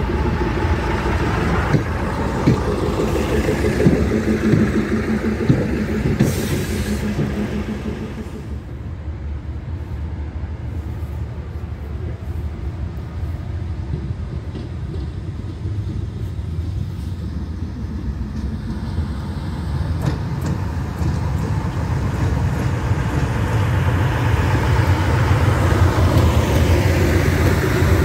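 SM30 diesel shunting locomotives and old passenger coaches. First the coaches roll slowly at the platform with a few sharp wheel clicks. Then, after a cut, a locomotive's diesel engine and the train's rumble grow louder over the last several seconds as the train passes close by.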